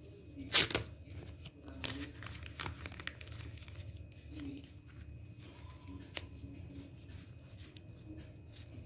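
Plastic packaging crinkling and paper sticker labels rustling as they are handled and pulled from their pack, with one loud sharp crinkle about half a second in and lighter rustles and clicks after it.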